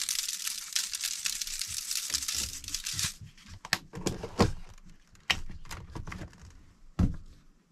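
Salt being sprinkled over dry rice in a foil-lined baking pan: a steady granular hiss that stops about three seconds in. Scattered light clicks and knocks follow as containers are handled.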